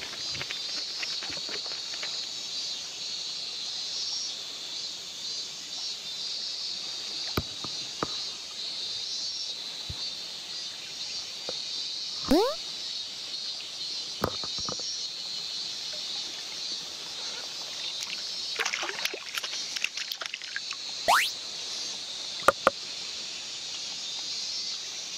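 Live riverside sound in shallow water: a steady high hiss, with light sloshing and clicks as a caught Japanese dace is handled in a mesh landing net and let go. About halfway through and again near the end comes a short, loud rising squeak.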